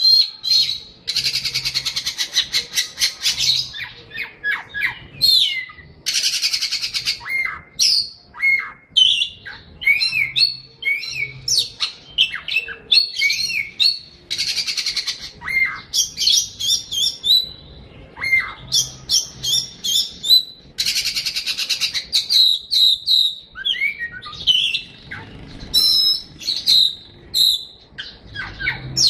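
A songbird singing a long, varied song: rapid trills of one to three seconds alternating with clear whistled notes and quick up-and-down glides.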